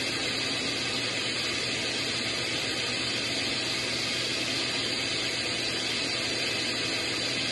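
Electric mixer running steadily, beating eggs and sugar for a cake batter: an even motor noise with a low steady hum.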